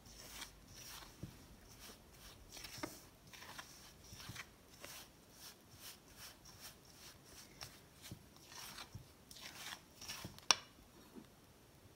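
Spatula stirring and scraping a crumbly flour-and-salt play dough mix in a stainless steel bowl: soft, gritty scrapes about one to two a second. A single sharp click about ten and a half seconds in.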